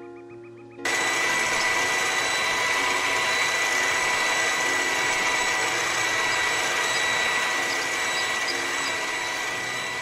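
Miniature toy mixer grinder switched on about a second in and running steadily at speed: a high electric-motor whine over a rushing noise as it grinds the masala in its jar, easing off slightly near the end.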